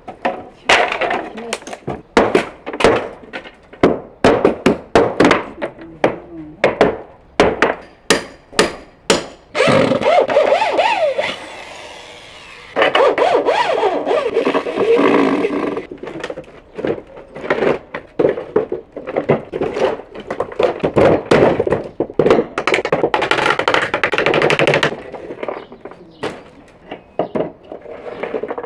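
Dismantling a concrete-filled wooden table: a rapid run of sharp knocks and thunks as wooden boards are struck and pried loose. Around the middle a corded power tool whirs in two stretches, its pitch gliding as it speeds up, and then the knocking and breaking of wood and concrete carries on.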